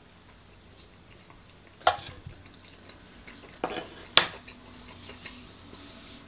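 Metal cutlery knocking against a wooden serving board as a knife and fork are used and set down: three short sharp clicks, one about two seconds in and two close together a little under four seconds in.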